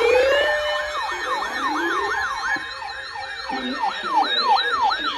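Electronic siren yelping, its pitch swinging up and down about three times a second, with other gliding siren tones layered over it.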